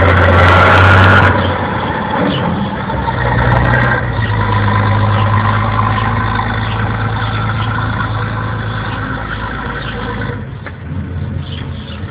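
Combine harvester's engine running steadily as the machine moves away, its low hum slowly fading. It is much louder for the first second or so, then drops suddenly.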